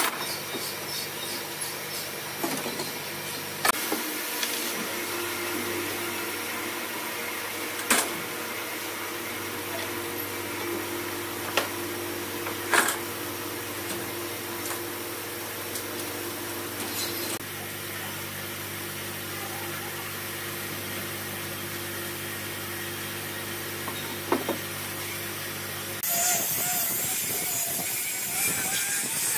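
Electric power tool running steadily on wood, with a few sharp knocks along the way. Near the end the sound turns louder and hissier.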